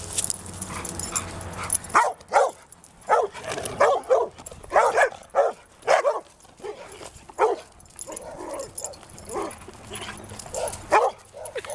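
Dogs barking in short, repeated barks and yips as they play, starting about two seconds in and going on in irregular clusters.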